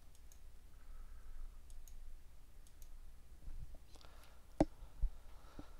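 Computer mouse clicks: a few faint scattered clicks, then two sharper clicks about half a second apart near the end.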